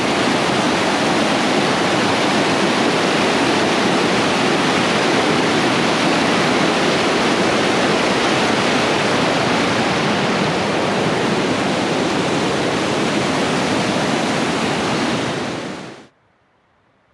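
A fast mountain stream rushing over rocks in white water, loud and steady, cutting off suddenly near the end.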